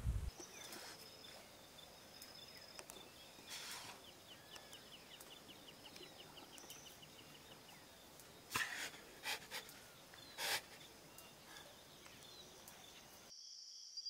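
Faint outdoor nature ambience with thin high calls and a quick ticking trill around the middle. A few short, louder bursts come in the second half, and a high, fast-pulsing chorus starts just before the end.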